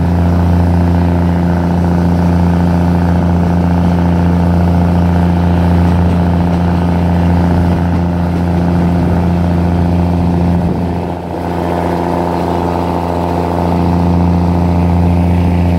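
Diesel train engine running steadily at a constant speed, a loud even drone that dips slightly about eleven seconds in.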